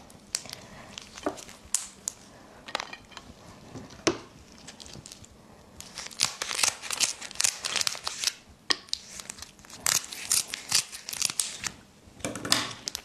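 Raw spiny lobster shell being pulled apart and cut with kitchen scissors: scattered sharp cracks and snips at first, then a dense run of crackling from about six seconds in, with a short break near nine seconds.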